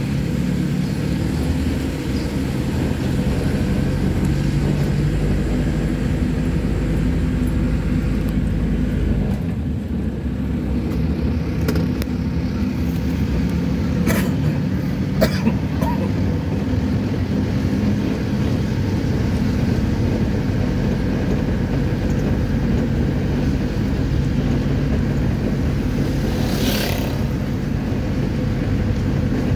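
Pick-up dump truck's engine running steadily while driving, with road noise, heard from inside the cab. Two sharp clicks come about halfway through.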